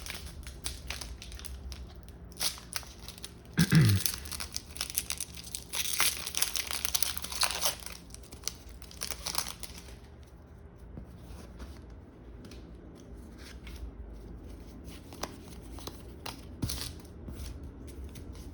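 A foil Pokémon booster pack being torn open and its wrapper crinkled, dense rustling for about the first ten seconds. There is a short low rising sound about four seconds in, the loudest moment. Then quieter, sparse handling of the cards.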